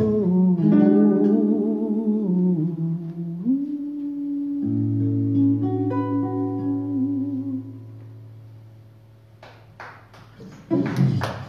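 Nylon-string acoustic guitar playing the last notes of a song under wordless humming. The final chord rings out and fades, and a few hand claps start near the end.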